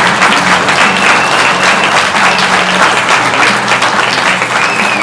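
Audience applauding steadily for a prize winner.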